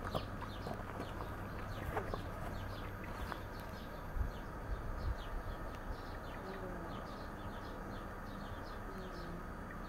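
Small birds chirping throughout, with a few low clucking calls in the second half. A couple of horse hoof steps on rubber mats in the first seconds, then the hooves stop.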